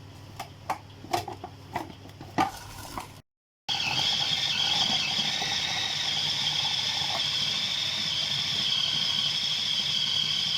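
An electric food chopper is being closed, with a few clicks and knocks. After a brief cut, its motor runs steadily with a high whine, chopping boiled chicken with herbs, green chillies and spices into a paste.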